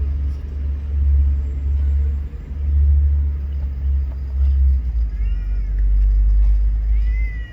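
A loud low rumble runs throughout. Over it a cat meows once about five seconds in, and starts a longer meow near the end.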